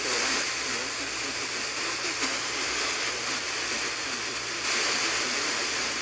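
Weather radio receiving a NOAA Weather Radio broadcast through heavy static hiss, with a faint voice under the noise: the sound of a weak, marginal signal.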